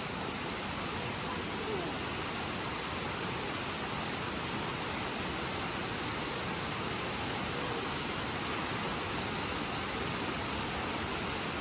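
Steady rush of Nachi Falls, a tall waterfall, as an even, unbroken noise of falling water.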